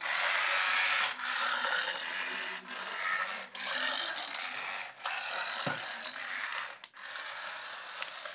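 Remote-control robot-on-skateboard toy running, its small gear motor whirring with a ratcheting grind. It comes in stretches of about one to two seconds with brief breaks between them.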